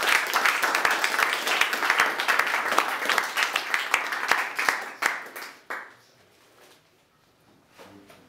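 A small audience applauding with hand claps; the clapping thins out and stops about six seconds in.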